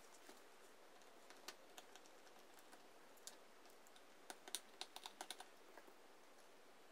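Faint, scattered clicks and taps of hands handling an opened laptop's plastic and metal parts, with a quick run of clicks between about four and five and a half seconds in.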